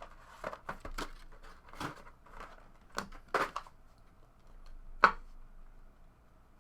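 Trading card packaging being opened and cards handled: scattered rustles and light clicks, with one sharp snap about five seconds in.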